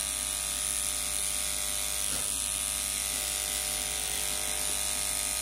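Electric dog-grooming clipper running with a steady buzz as its blade trims a puppy's fur.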